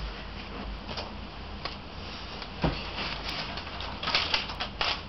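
Pen scratching on paper while writing by hand, with light paper rustling and taps. A quicker bunch of louder scratches comes about four seconds in.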